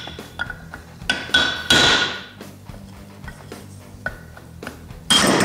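Ball-peen hammer striking a brass drift punch set on the end of a Honda TRX300 final drive pinion gear. Groups of ringing metallic blows knock the gear and its pressed-in bearing out of the case: a cluster about a second in, light taps around four seconds, and the loudest blows near the end.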